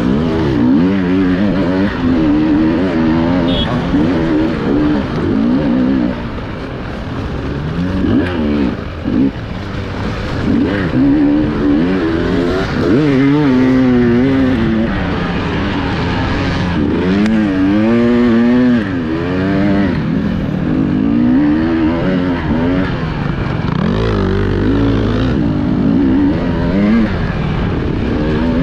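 Enduro motorcycle engine revving up and down hard as the bike is ridden off-road, its pitch rising and falling every second or two, heard from on the bike itself.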